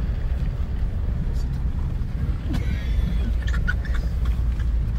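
Steady low rumble of a car's engine and tyres, heard from inside the cabin as the car drives slowly to park.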